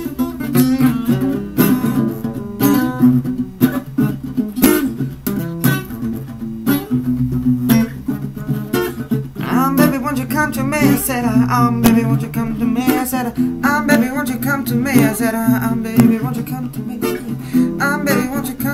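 Steel-string acoustic guitar played solo in a funk groove: fingered chords mixed with sharp percussive, muted strums.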